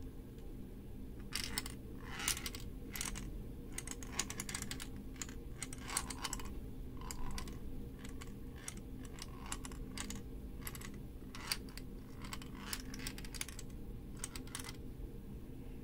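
Small steel ball rolling and clicking against the walls of a 3D-printed plastic maze as it is tilted by hand: irregular clicks and taps, starting about a second in and stopping near the end.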